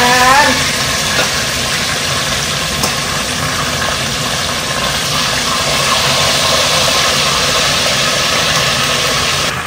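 Chicken pieces deep-frying in hot oil in a pot, a loud steady sizzle, over the hum of a kitchen range hood fan on high. Just before the end the upper hiss suddenly drops and the sound gets quieter.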